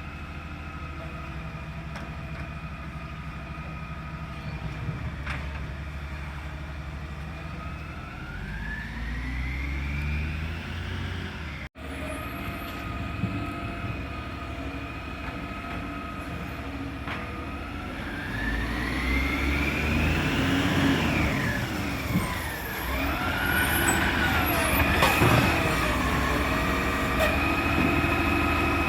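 Side-loader garbage truck's diesel engine idling, then revving up and back down several times, the pitch rising and falling, before settling back to a steady idle.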